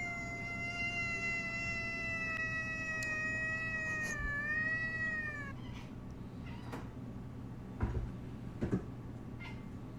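A cat giving one long, drawn-out yowl held at a steady pitch, dipping at the end and stopping about five and a half seconds in. A few soft low knocks follow near the end.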